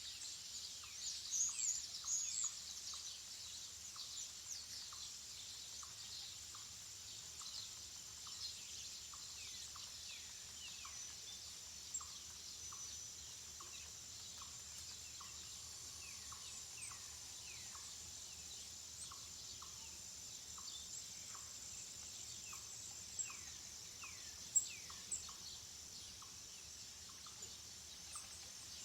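Small birds chirping over and over in short falling calls, over a steady high-pitched hiss, with a faint short note repeating about twice a second.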